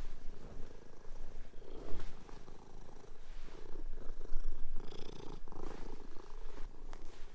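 A domestic cat purring close by, the purr swelling and fading with each breath, about once a second.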